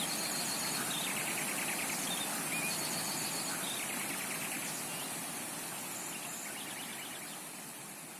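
Steady rush of a flowing rainforest creek with tropical birds calling over it: a few quick trilled note series and short whistles. The whole fades out gradually through the second half.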